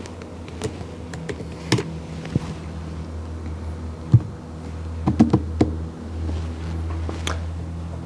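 A few scattered clicks and taps of keys being pressed to enter a calculation on a calculator, the loudest about four seconds in with a quick cluster a second later. A steady low hum runs underneath.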